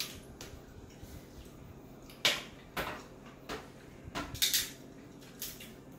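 King crab leg shells being cracked and snapped apart by hand: a series of short, sharp cracks, the loudest about two seconds in, followed by half a dozen more over the next few seconds.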